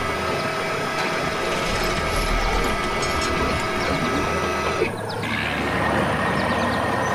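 Cartoon machinery sound effect: a steady mechanical whirring and ratcheting, which changes abruptly with a brief click about five seconds in.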